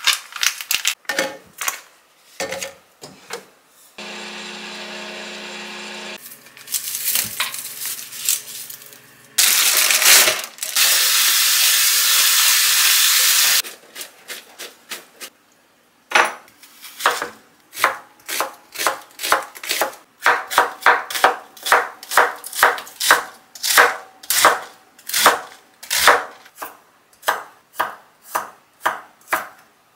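Crackling plastic film peeled off an instant-rice tray, then a steady hum for about two seconds. A loud rush of running tap water for about four seconds over bean sprouts in a stainless steel colander. From about halfway on, a kitchen knife slicing garlic cloves on a cutting board, about two cuts a second.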